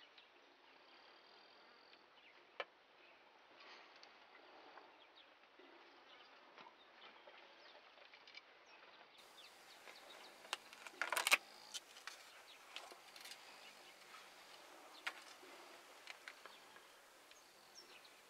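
Faint outdoor ambience with insects buzzing and scattered light ticks. A short cluster of sharper clicks comes a little past halfway.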